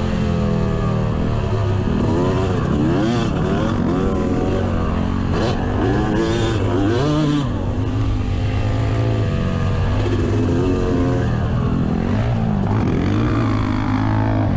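Yamaha YZ250 single-cylinder two-stroke dirt bike engine revving up and down again and again as it is ridden through corners and over jumps, heard up close from the bike with a heavy low rumble under it.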